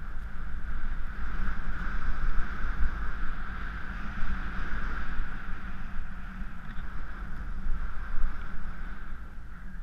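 Wind buffeting an action camera's microphone during a fast ski descent, a steady rumble under the hiss of skis sliding through powder snow.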